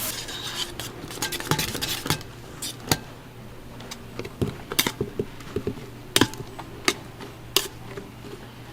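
Scattered sharp clicks and clinks of kitchen utensils on metal and dishes during toast preparation at a street food stall, over a low steady hum.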